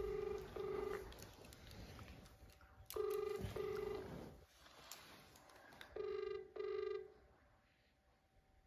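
Telephone ringback tone playing from a smartphone held on speaker while a call waits to be answered: three double rings, each a pair of short buzzing tones, about three seconds apart.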